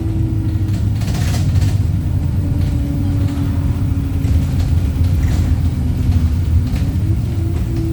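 Wright StreetLite single-deck bus engine running on the road with a steady low rumble. Its pitch sags slowly over several seconds, then rises again about seven seconds in as the bus picks up speed.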